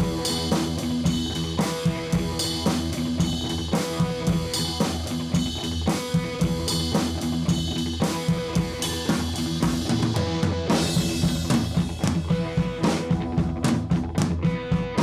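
Background music: a rock-style track with a drum kit keeping a steady beat under guitar.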